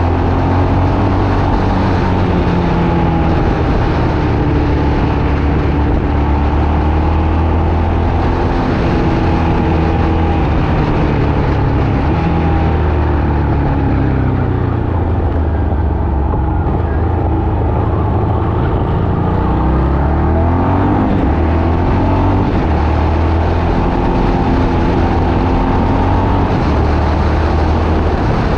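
A motor vehicle driving under way: steady engine and road noise with a heavy low rumble, the engine's pitch rising and falling as its speed changes.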